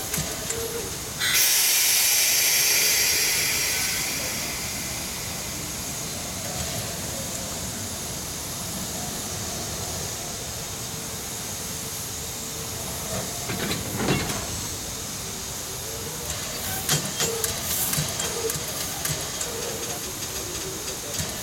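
Steam locomotive venting steam: a loud hiss starts suddenly about a second in and fades away over a few seconds. Later there is a single clank near the middle, and scattered knocks and clanks toward the end.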